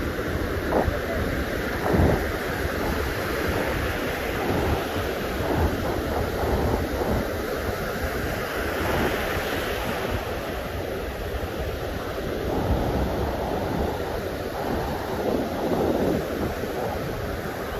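Small ocean waves breaking and washing over the shallows in a continuous hiss of surf and foam, swelling louder as a nearer wave breaks about nine seconds in. Wind rumbles on the microphone underneath.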